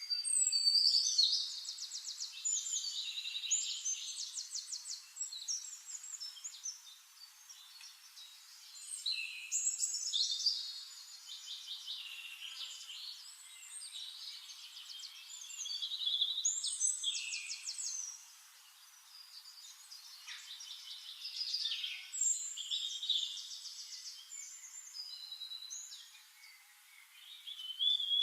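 Songbirds singing: high, warbling phrases full of rapid trills, each bout lasting a few seconds and starting again every five to seven seconds.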